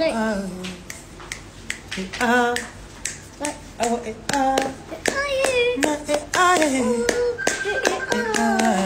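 A voice singing a wavering, gliding melody, with hand claps throughout.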